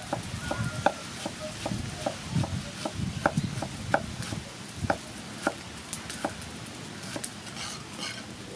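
Steel cleaver chopping bamboo shoot strips on a wooden chopping board: a series of sharp knocks, about two a second, that stops about six seconds in.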